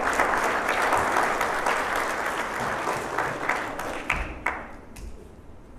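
Audience applauding, dying away about four seconds in into a few last scattered claps.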